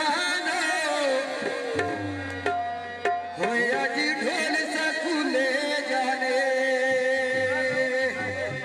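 Live South Asian folk music: a man sings a wavering, ornamented melody through a microphone and PA, accompanied by a tabla-type hand drum and held instrumental notes.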